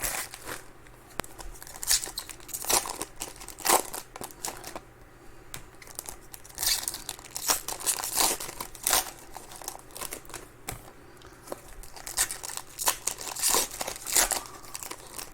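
Foil trading-card pack wrappers crinkling and tearing as Donruss Optic baseball packs are ripped open and the cards handled, in irregular bursts of rustling with short lulls between.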